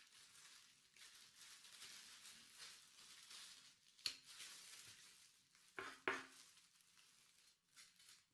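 Faint knife-work on a wooden cutting board as the stem and seeds are cut out of a green chili pepper: a few soft clicks and taps of the blade, with crinkling from the plastic glove, over a low hiss.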